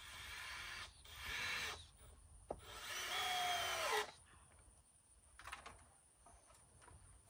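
Power drill driving screws into a wooden framing beam in three short runs, the last one longest, its motor pitch dropping as the screw seats. A single sharp tap comes between the second and third runs.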